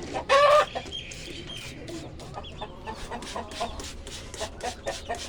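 Brahma hens clucking, with one loud call about half a second in, then short, sharp clucks.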